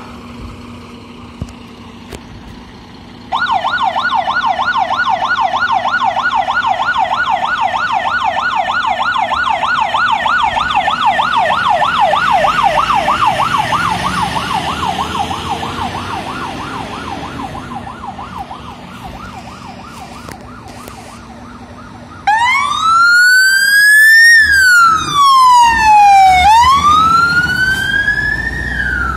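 Fire engine sirens. About three seconds in, a fast warbling yelp siren starts; it grows louder and then fades as the Mercedes Atego fire engine passes and moves away. About twenty-two seconds in, a louder slow wail siren starts suddenly and rises and falls as the Scania P450 fire engine pulls past close by.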